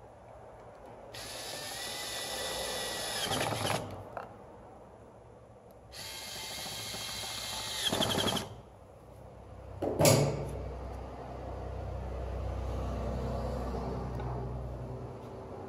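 Power drill driving screws into the plastic blower motor housing: two runs of a few seconds each, each ending louder as the screw seats. About ten seconds in comes a sharp click.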